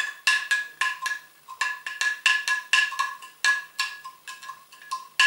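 A spoon clinking against the inside of a glass jar, about three to four ringing taps a second, while stirring to dissolve crystal-growing powder in warm water.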